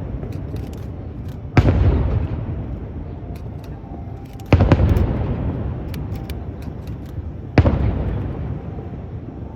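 Aerial firework shells bursting: three loud booms about three seconds apart, each followed by a long rolling echo that dies away, with light crackling in between.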